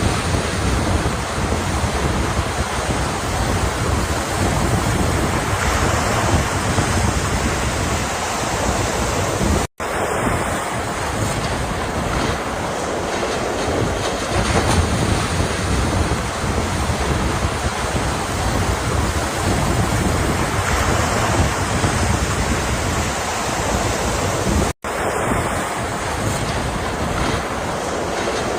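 Ocean surf: waves washing and breaking in a steady rushing roar. The sound cuts out for a split second twice, about ten and twenty-five seconds in.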